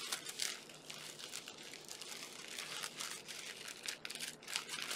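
Tissue paper crinkling and rustling in quick, irregular scratches as it is worked open at the sticker sealing it, carefully so as not to tear it.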